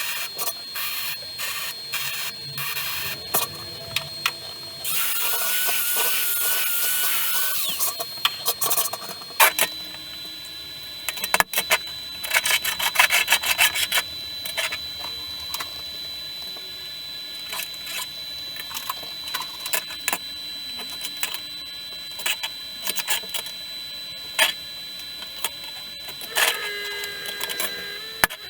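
Hand work on the stool in a workshop: scattered knocks and clicks, a stretch of steady hissing a few seconds in, and a quick run of rasping, saw-like strokes around the middle.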